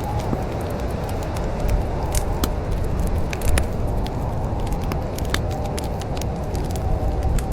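Wood fire crackling in a fireplace: irregular sharp pops and snaps over a steady low rumble of the flames. A faint wavering whistle comes in near the end.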